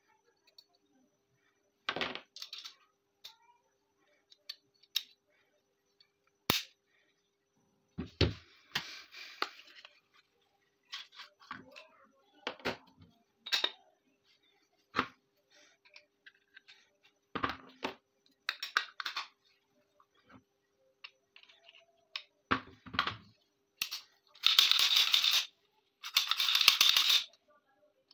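Metal parts of a Tokarev-type 30 bore pistol clicking and clacking as it is handled and reassembled: scattered sharp clicks and knocks, then two longer, louder scraping rasps of about a second each near the end.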